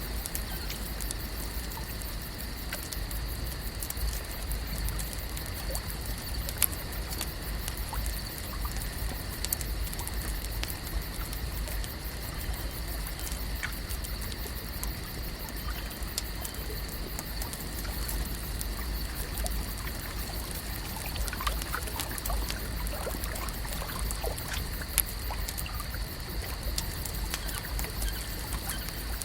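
Lakeside ambience: water gently trickling and lapping in a steady wash, over a constant high hum, with scattered small clicks and a few faint chirps about three-quarters of the way through.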